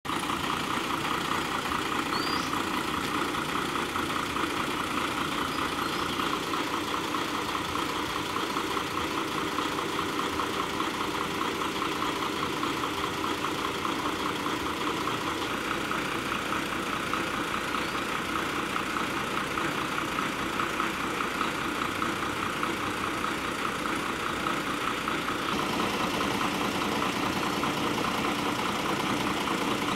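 Ashok Leyland Viking bus's diesel engine idling steadily, growing slightly louder near the end.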